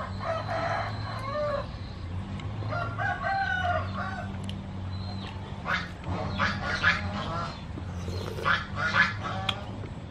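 A rooster crowing twice in the first few seconds, then bursts of short calls from farmyard fowl, over a steady low hum.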